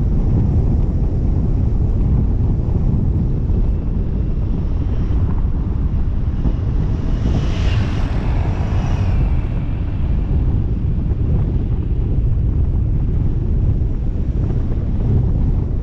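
Wind buffeting the microphone over a steady low rumble. About seven seconds in, a hissing whoosh swells and fades over about two seconds.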